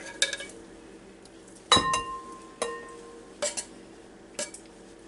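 Metal tuna can knocked a few times against the rim of a glass mixing bowl to shake out tuna that is stuck in it, each clink leaving a brief glassy ring, the loudest a little under two seconds in.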